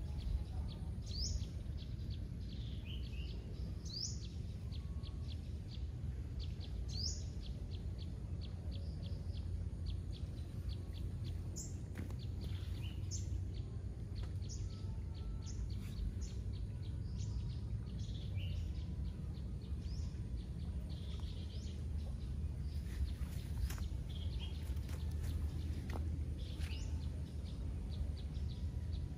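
Birds calling with short, sharp rising chirps, repeated every few seconds and more often around the middle, over a steady low rumble.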